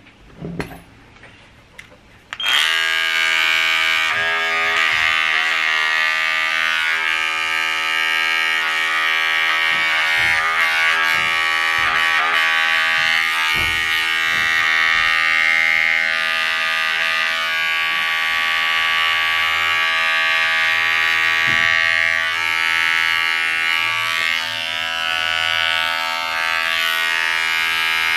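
A few sharp clicks of pet nail clippers, then about two and a half seconds in a small cordless pet nail grinder switches on and runs steadily with a high motor whine, its tone wavering slightly as it is worked on a puppy's nails.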